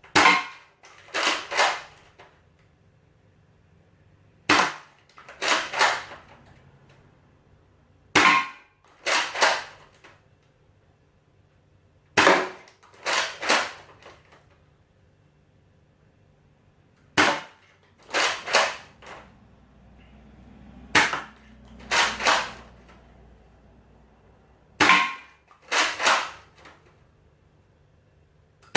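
Spring-powered Nerf Retaliator blaster fitted with a 6 kg upgrade spring, fired seven times. Each shot is a sharp snap of the plunger, followed about a second later by a quick double clack as the priming slide is pulled back and pushed forward again.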